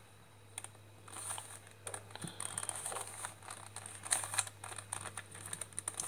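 Plastic 3x3 Rubik's cube being twisted in the hands: layers turning with a quick, irregular run of small clicks and rattles.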